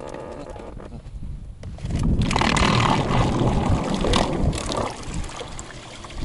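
Water splashing and gurgling around a small boat, with a louder rush of noise lasting about three seconds in the middle.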